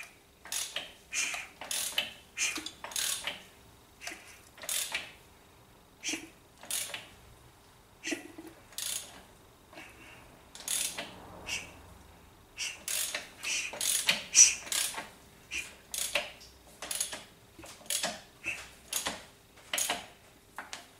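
A hand ratchet clicking through stroke after stroke in quick runs with short pauses, winding the diesel engine over by hand at the crankshaft to check that the timing marks line up after the new timing belt is fitted.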